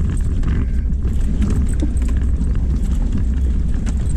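Jeep driving slowly over a rocky dirt trail: a steady low rumble from the engine and drivetrain, with scattered knocks and rattles as the tyres climb over loose rock.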